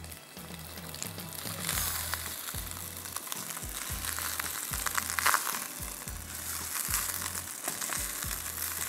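Boiled rice sizzling in oil in a frying pan, turned and scraped with a utensil, with louder scrapes about two and five seconds in. Quiet background music with a repeating low bass note runs underneath.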